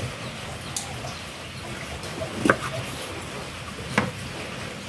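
A few short, sharp taps and knocks, a second or more apart, from cut lime pieces being handled on a wooden cutting board, over a faint steady hiss.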